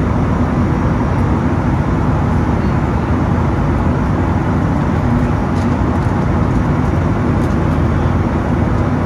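Steady cabin noise inside a Boeing 757-200 with Pratt & Whitney PW2037 engines: a loud, even rumble of the engines and airflow, heaviest in the low range, with a faint hum running through it.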